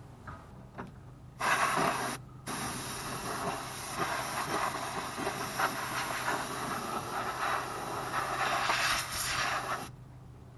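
Can of compressed air duster spraying in a long hiss, blowing debris off an engine whose intake manifold has been removed. The hiss starts about a second and a half in, stops briefly, then runs on until near the end.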